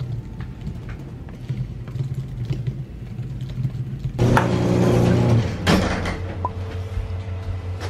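Light, irregular clicks of typing on a computer keyboard. About four seconds in comes a loud rumbling noise lasting about a second and a half, then a second shorter burst.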